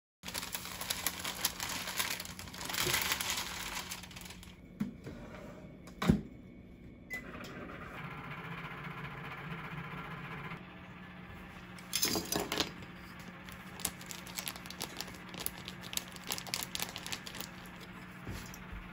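Kitchen handling noises: rustling and small clicks, with a sharp knock about six seconds in. A combination microwave oven then runs with a steady hum for a few seconds while the cookies bake. Crinkling and clicking follow, from plastic wrap and utensils being handled.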